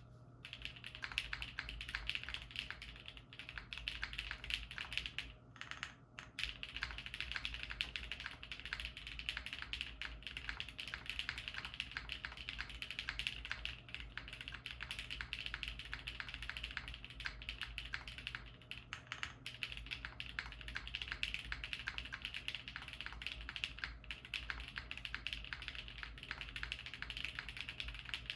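Knew60 mechanical keyboard with Kailh Stem Black switches being typed on at a fast, steady pace: a dense run of keystroke clacks, with a brief pause about six seconds in.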